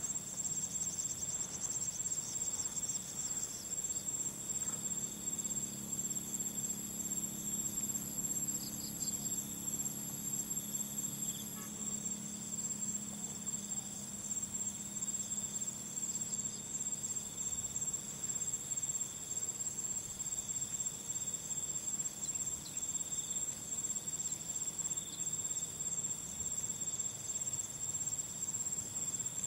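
Insects chirring in a steady, continuous high trill, with a fainter second trill lower down.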